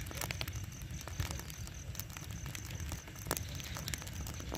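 Burning pile of rice straw crackling, with irregular sharp pops over a low steady rumble.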